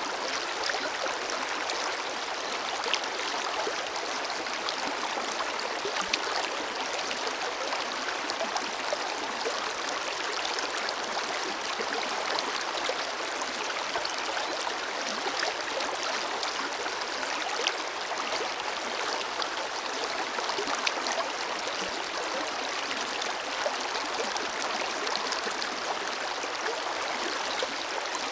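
A forest river flowing over rocks: a steady, even rush of water with small splashes and gurgles throughout.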